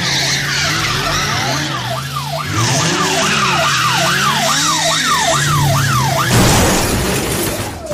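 Car-chase sound effects: a police siren wailing up and down about twice a second over a steady car-engine drone, then about six seconds in a loud burst of tyres skidding.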